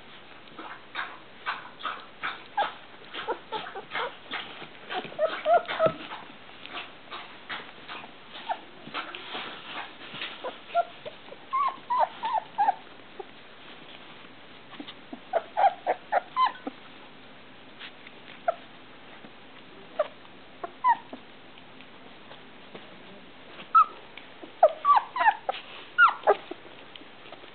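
Three-week-old rough collie puppies whimpering and squeaking in short clusters of high little cries, with many small clicks and scuffles in the first half.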